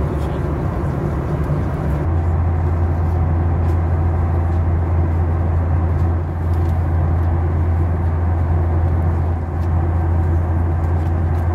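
Steady low drone of a Boeing 737's cabin in cruise: engine and airflow noise heard from a passenger seat.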